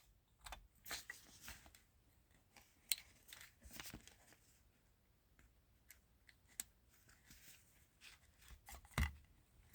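Faint, scattered clicks and rustles of electrical test leads being handled and reconnected by hand, with a sharper click about 3 s in and a dull knock near the end.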